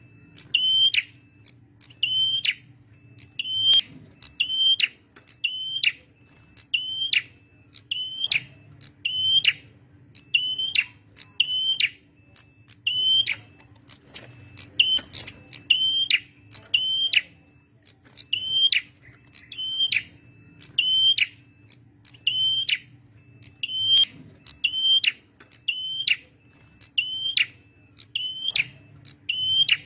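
Male prenjak merah singing persistently: a sharp, high chirping note repeated about twice a second, over a faint steady low hum.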